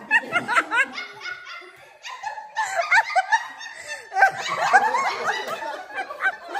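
A group of adults laughing hard together in repeated bursts, dying down briefly about two seconds in and building up again.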